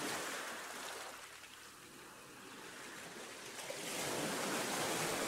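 Owl Knife IKRA fillet knife slicing a fillet off a raw mullet along the backbone: a soft, rasping hiss of the blade through flesh, swelling at the start and again about four seconds in.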